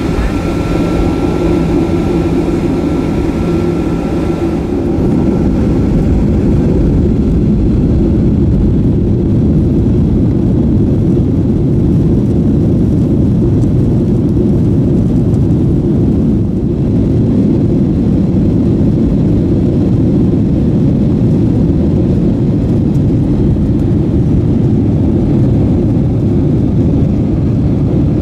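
Cabin sound of a Boeing 737-800's CFM56 jet engines. A steady hum with a faint whine while the plane taxis, then about five seconds in the engines spool up to takeoff thrust, and a steady low roar carries through the takeoff roll and climb-out.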